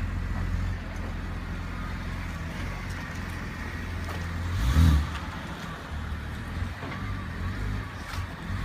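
BMW X5 3.0i's straight-six engine idling, with one quick rev blip about halfway through and the start of another right at the end.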